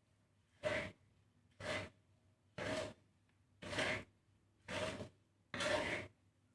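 Spatula stirring a millet and seed mix as it dry-roasts in a pan: six even scraping, rustling strokes, about one a second, with a faint ring from the pan on each stroke.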